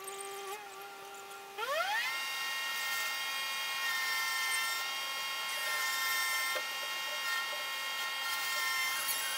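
Chainsaw engine running at a steady low speed, then revved up over about half a second to full throttle and held there, a steady high whine. The audio is sped up, which pushes its pitch high, close to a drill.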